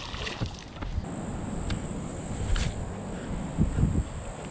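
Insects trilling steadily in a high, thin drone that sets in about a second in, after a brief splash of a released fish dropping back into the water at the start.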